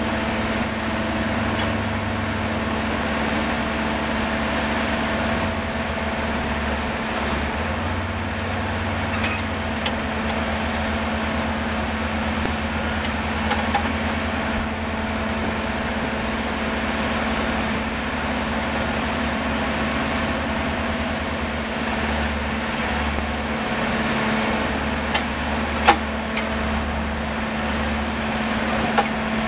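Core drilling rig running steadily while coring a caisson: a constant machine hum over a pulsing low rumble, with a few sharp clicks, the loudest one near the end.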